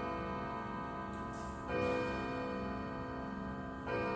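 Howard Miller grandfather clock striking the hour: the same chime note is struck twice, about two seconds apart, and each strike rings on. The pendulum movement ticks steadily behind it.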